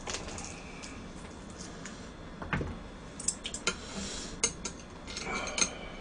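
Metal chopsticks clicking and tapping against a plate as a bite is put together, with a soft thump about two and a half seconds in.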